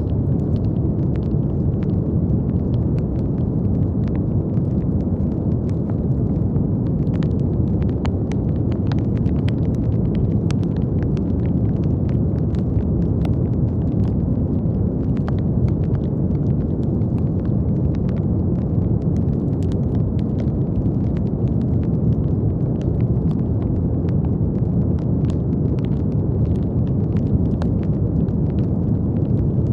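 Steady brown noise: a deep, even noise weighted to the low end, with faint, irregular clicks or crackles scattered through it.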